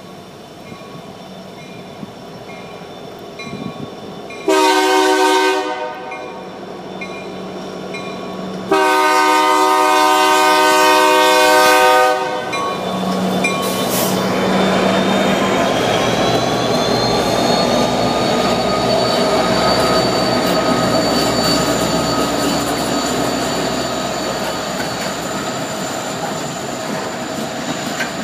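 A crossing bell ticking about twice a second as two SD90MAC diesel locomotives approach, sounding the air horn in two blasts: a short one about four seconds in and a long one of about three seconds from about nine seconds in. The locomotives then pass close by, and the freight cars roll over the crossing with steady clickety-clack and a thin wheel-squeal whine that rises and holds.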